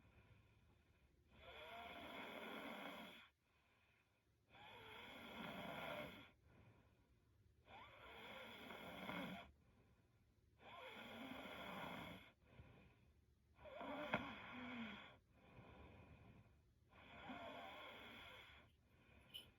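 A young woman snoring in her sleep: six slow, even snores, each about a second and a half long, coming about every three seconds.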